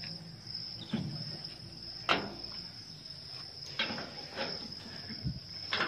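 Iron chain being handled and threaded through a metal door frame: several sharp metallic clinks, loudest about two seconds in and near the end, over a steady high-pitched drone.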